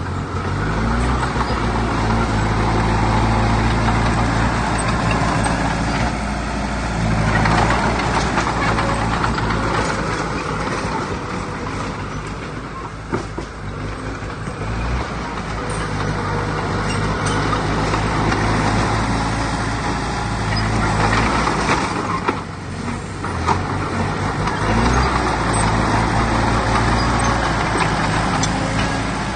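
Heavy diesel engine of earthmoving machinery running, its level and note rising and falling several times as the load changes.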